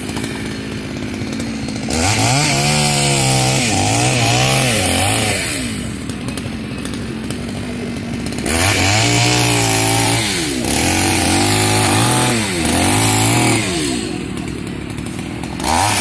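Chainsaw idling, then revved up and cutting through fallen tree branches in three spells: from about two seconds in, again for about five seconds from the middle, and once more near the end. Its engine pitch rises and falls as it works through the wood.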